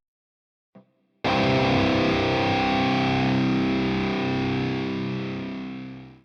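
Electric guitar through distortion: after a brief click, a single chord is struck a little over a second in and left to ring, fading slightly before it cuts off abruptly.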